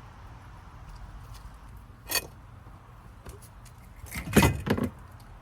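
Metal compression band clamp of a DE pool filter being worked off the tank: a sharp clink about two seconds in, then a louder double clank near the end.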